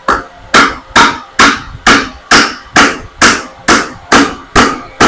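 A hammer driving a nail into a wooden rail with a steady run of blows, about two a second and evenly paced, each blow a sharp knock.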